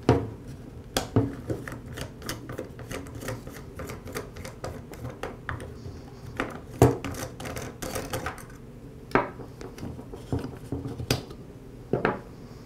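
Plastic clicking and rattling from a Ryobi string trimmer's bump-feed head as the bump knob is twisted off and the spool is taken out: a steady string of small clicks with a few louder knocks.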